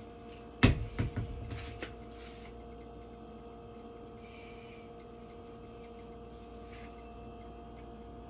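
A sharp knock less than a second in, then a few lighter clicks, as flour is sprinkled over veal sweetbreads. After that, a steady hum with faint rubbing as the flour is patted in by hand.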